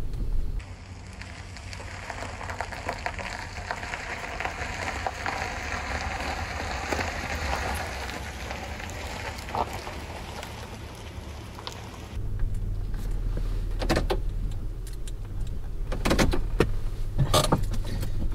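Honda Pilot driving slowly, heard from inside: a low road and engine rumble. For most of the first two-thirds a steady crackling hiss covers it, and the rumble comes back louder about two-thirds in. A few sharp knocks sound near the end.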